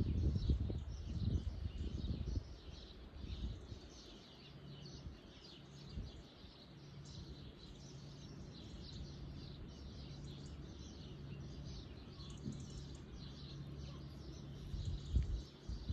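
Small birds chirping continuously in many quick short calls. A low rumble on the microphone sits under them in the first few seconds and again near the end, and a faint steady low hum runs through the middle.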